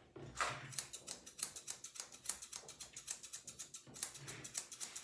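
Curved chunking scissors snipping through the long hair of a spaniel's ear, a quick, even run of sharp snips as the edge of the ear is trimmed in a straight line.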